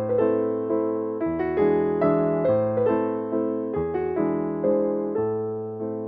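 Background piano music: soft chords and melody notes struck about twice a second, each fading before the next.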